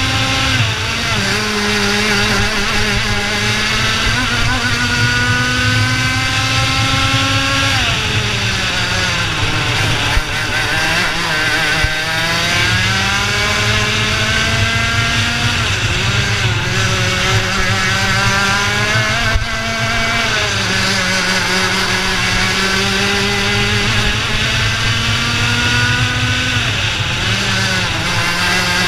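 IAME Leopard 125cc two-stroke kart engine at racing speed, heard from the driver's seat. Its pitch climbs steadily as it accelerates and drops sharply under braking into corners, several times.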